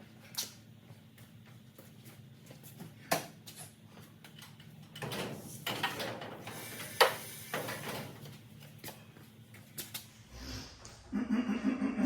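Scattered clicks and knocks with stretches of scraping and rustling, as of hand tools and parts being handled, with one sharp click standing out about seven seconds in. A short low buzz comes near the end.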